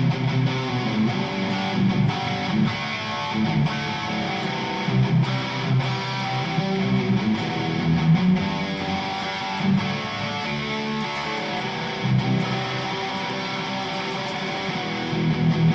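Harley Benton SC-500 electric guitar strumming chords, played through the Overloud TH3 amp simulator, with a steady run of strokes.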